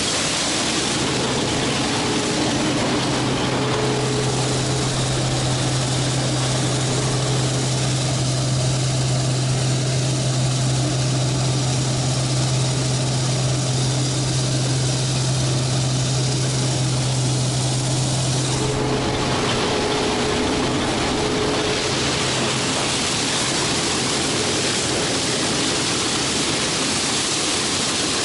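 Case 2166 Axial-Flow combine running under load while harvesting corn: a steady, even machine noise. A steady low hum runs through it from about a second in until about two-thirds of the way through.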